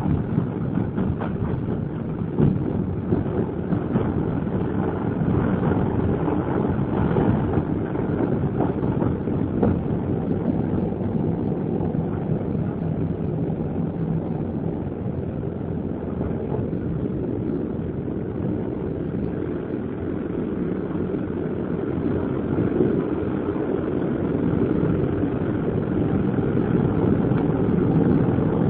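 Passenger train running on track, heard from inside the carriage: a steady rumble of wheels on rail with scattered clicks and knocks in the first ten seconds or so, growing louder near the end.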